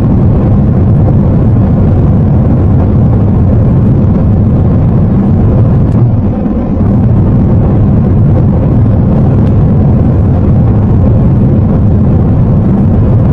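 Steady, loud, low rumble of a jet airliner in flight, with a brief dip in level about six and a half seconds in.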